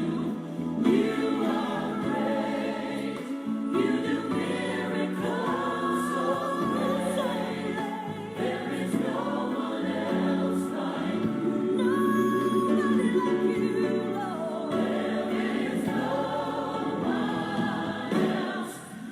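A choir singing a gospel worship song, the voices holding and sliding between sustained notes.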